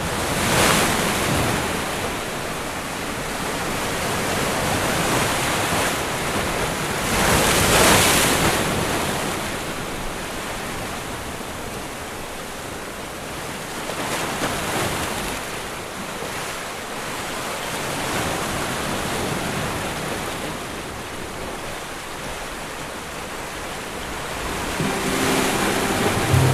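Sea waves washing in over rocky shore ledges, a steady rush that swells and ebbs in several surges, the loudest about eight seconds in. Music comes in near the end.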